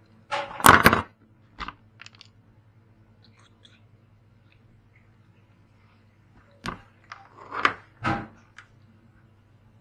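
Short crunching and clicking handling sounds come in two bursts, one about a second in and another around seven to eight seconds in. They fit a coaxial cable and its connector being cut, stripped and worked by hand for a satellite dish LNB.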